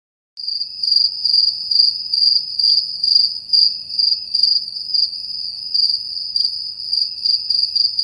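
Crickets chirping: a steady high-pitched trill with louder pulses about twice a second.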